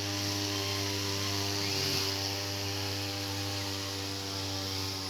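Two-stroke brush cutter (grass-cutting machine) running at a steady speed.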